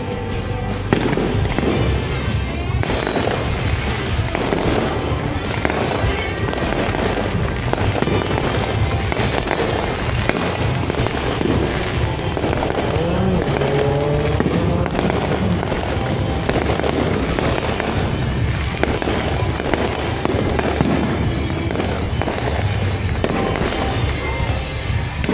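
Aerial fireworks display: shells bursting in a steady stream of bangs and crackles.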